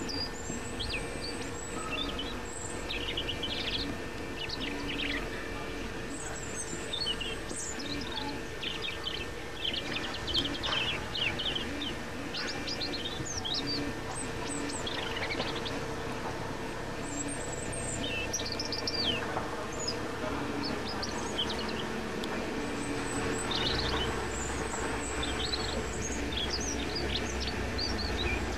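European robin singing: short, high, quickly varying warbled phrases with pauses between them. A steady low hum runs underneath.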